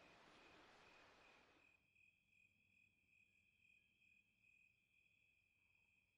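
Near silence, with faint steady cricket chirping at a high pitch. A faint hiss drops away about two seconds in.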